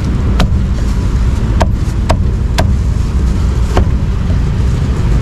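A heavy steel cleaver chopping roast meat on a thick round wooden chopping block: five sharp knocks, irregularly spaced, the last about two-thirds of the way through. Under them runs a steady low rumble of street traffic.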